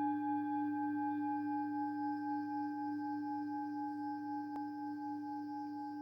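Tibetan singing bowl ringing on after a strike, a low tone with several higher overtones that fades slowly with a steady wavering pulse.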